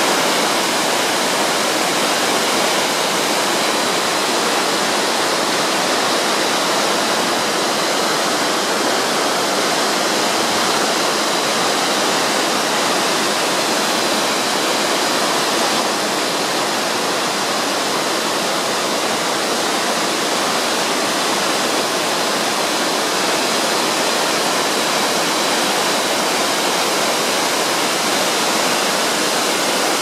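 Shirahige Falls: many strands of water pouring down a rock cliff into the river, a steady, even rush.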